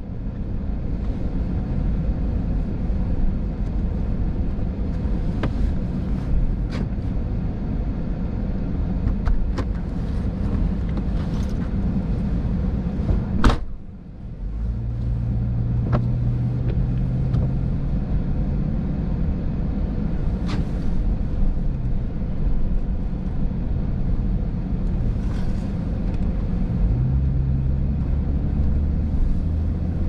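Car driving slowly on wet pavement, heard from inside the cabin: a steady low engine and road rumble with scattered light clicks. About halfway through there is one sharp click and the rumble briefly drops away, and afterwards a low engine hum comes and goes.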